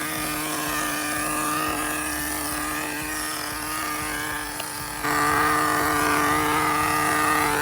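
Nitro-fuelled RC car engine idling steadily while it warms up after a fresh start. About five seconds in it gets louder and holds at the higher level.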